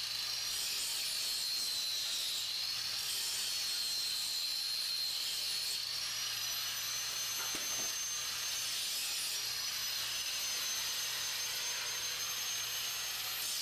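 Electric angle grinder running against the blade of a pair of loppers clamped in a vise: a steady high whine whose pitch wavers under the load. About six seconds in the pitch steps up and then holds steady.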